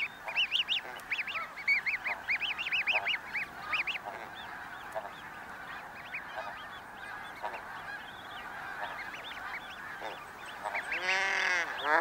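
Snow goose colony calling: a steady din of distant calls, with a quick run of short high calls in the first few seconds. Loud repeated honking from nearby geese comes in near the end.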